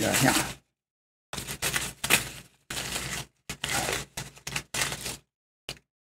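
Crumpled packing paper crinkling and rustling in short bursts as it is unwrapped by hand.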